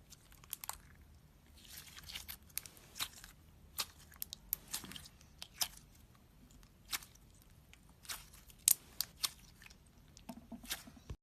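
Slime being squeezed and poked by hand, making irregular sharp clicks and crackles, a few a second.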